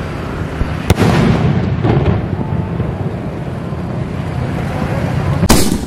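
Aerial sky-shot firework shell bursting with a sharp bang about a second in, followed by a loud rushing rumble as the break spreads. A second loud bang comes near the end, over a steady low rumble.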